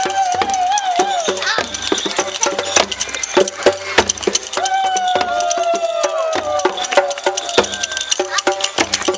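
Hand rattles and shakers clattering in many quick, irregular clicks, over voices calling out in long, drawn-out, wavering tones, with one long, slowly falling call about halfway through.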